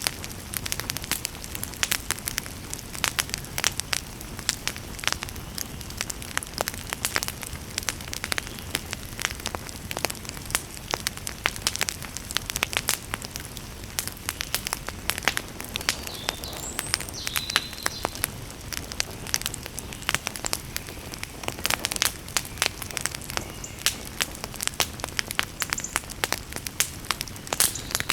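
Wood fire burning in a campfire, crackling and popping with many irregular sharp snaps over a steady low rush of flame.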